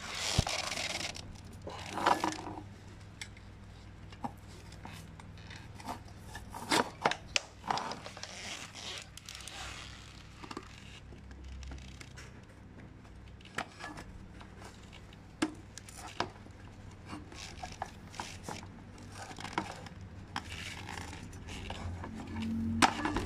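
Scattered clicks, knocks and scrapes of plastic bicycle baby-seat parts being handled and pressed together, with rustling in the first couple of seconds.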